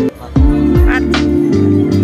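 Background music with a steady beat and a sustained bass line, which cuts out briefly just after the start.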